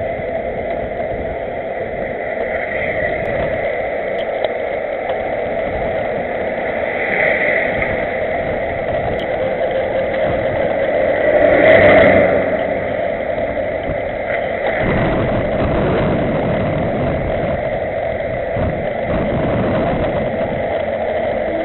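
Steady rushing noise of wind and tyres on asphalt, heard from a camera mounted on a bicycle riding in a pack of cyclists, swelling louder for a moment about twelve seconds in.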